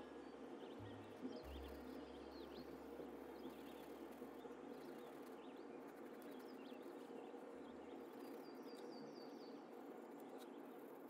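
Faint bird chirps over a steady low hiss, with a quick run of repeated chirps near the end.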